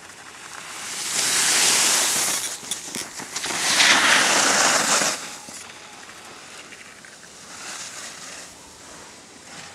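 Skis scraping across packed snow through turns: a rush of noise that swells up about a second in, peaks again around four seconds, fades, then comes back as softer swells near the end.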